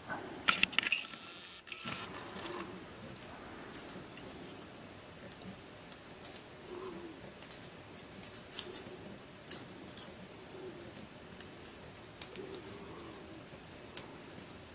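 Plastic pieces of a six-stick burr puzzle clicking and sliding against each other as it is turned and worked in the hands, with irregular small clicks and a louder cluster of them about half a second in.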